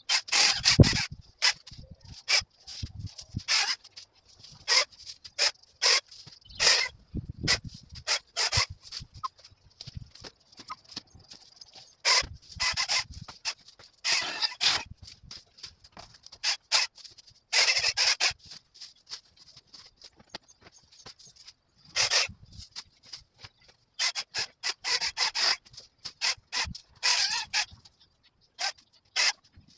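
Brush and bramble branches being cut, pulled and dragged by hand, giving irregular cracks, snaps and rustling, some single and some in clusters lasting about a second.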